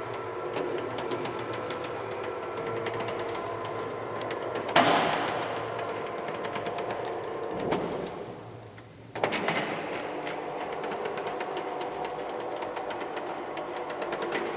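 Roller blind rolling on its roller with a fast, even rattling whir. A sharp clack comes about five seconds in, then a click, a brief lull, and it starts up again with another clack.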